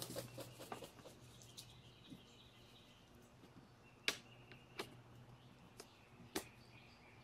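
Small clicks and knocks of hands handling the plastic and metal blower housing of a Briggs & Stratton lawn-tractor engine: a cluster of light clicks at first, then a few sharper ones, the loudest about four seconds in.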